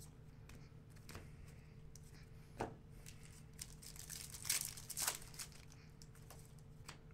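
Trading-card pack wrapper being torn open and crinkled: scattered soft rustles and a few short, sharper crackles, the loudest about four and a half to five seconds in.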